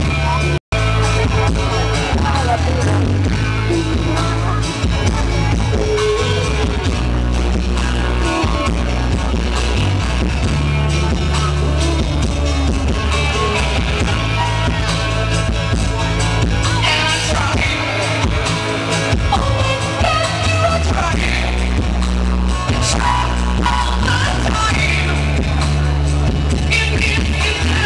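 Loud music with singing over a steady bass line, playing for a dance. The sound cuts out for an instant just under a second in.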